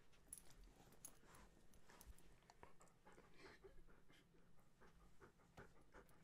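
Faint panting of a Siberian husky, with light clicks and rustles scattered through.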